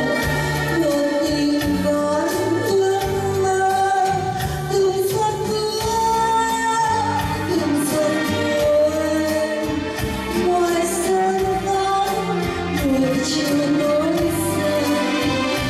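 A woman sings a Vietnamese ballad live into a microphone, holding and gliding between long notes, over electronic keyboard accompaniment with a steady bass line.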